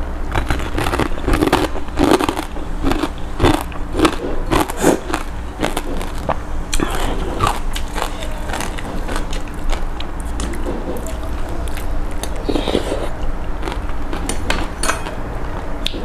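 A person eating spicy pork noodle soup close to a lapel microphone: chewing and biting, with many short wet clicks and smacks scattered throughout.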